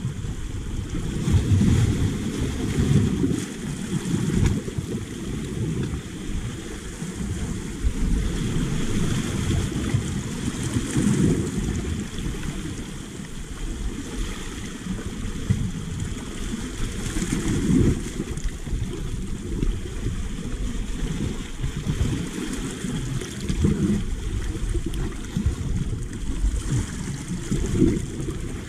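Sea waves washing and sloshing over rocky reef at the waterline, swelling and easing every few seconds, with wind noise on the microphone.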